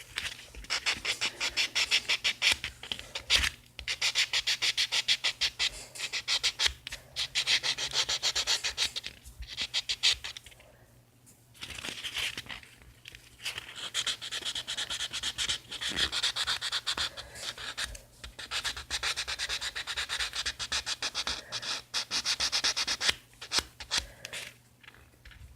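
A nail buffer rubbing quickly back and forth over a thumbnail, in runs of rapid rasping strokes with short pauses between. It is smoothing out a dried nail-glue patch over a broken nail.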